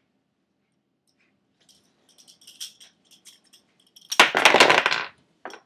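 Small metal hardware being handled: light clinks and taps, then a loud jangling rattle about four seconds in lasting roughly a second, and a few more clinks near the end.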